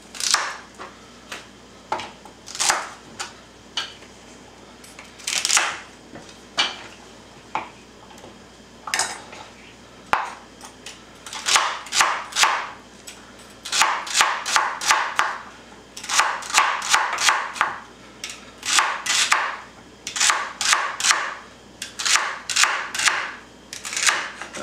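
Chef's knife chopping celery on a wooden cutting board: scattered single cuts at first, then from about halfway in, runs of quick chops at about four a second.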